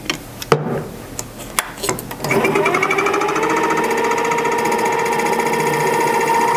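Mini lathe: a few sharp metal clicks as the three-jaw chuck is tightened with its key, then about two seconds in the motor starts and the spindle spins up to a steady running whine.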